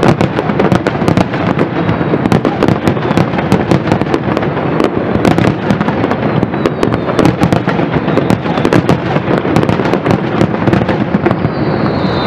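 Fireworks display: a continuous, dense volley of aerial shell bangs and crackles with no let-up. Near the end a high whistle slides down in pitch over the crackling.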